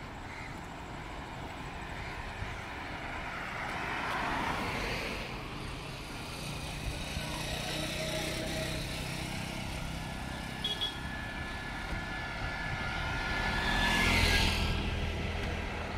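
Road traffic on a city street: cars and motorcycles passing. One vehicle swells past about four seconds in, and another, the loudest, goes by near the end.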